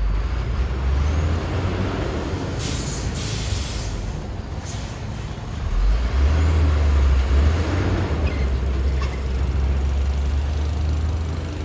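Heavy construction machinery's diesel engine running with a steady low rumble that grows louder about six seconds in. Short bursts of hissing air come about three and five seconds in.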